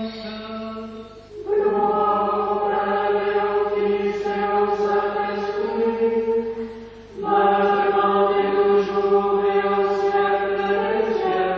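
Small choir chanting slowly in long held chords. The singing breaks off briefly twice, about a second in and about seven seconds in, before the next phrase begins.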